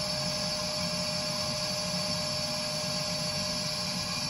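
Burnham Alpine gas condensing boiler running just after ignition: its combustion blower and burner make a steady rushing hum with a constant mid-pitched whine, firing at a low rate.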